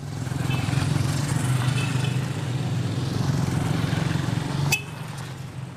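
A motor engine running steadily, then cut off by a sharp click near the end, leaving a quieter hum.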